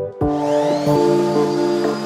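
Background music over a random orbital sander that starts about a quarter-second in, its whine rising and then holding steady above a hiss of sanding on a hardwood cutting board.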